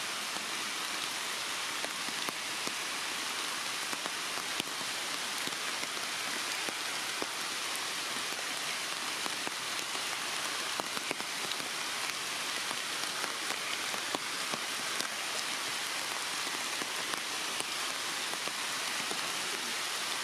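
Steady rain falling, an even hiss dotted with scattered sharper drip ticks.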